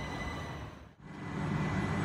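Southern Class 377 electric multiple unit running along the platform: a steady rumble with a faint high whine. It briefly drops away about halfway through, then a louder low rumble takes over from a unit close by.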